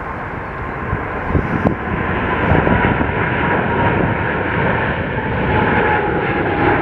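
Boeing 777-300ER's twin GE90 turbofan engines at takeoff thrust as the jet climbs away just after liftoff: a loud, steady jet rumble with a whining tone that drifts slightly lower in pitch.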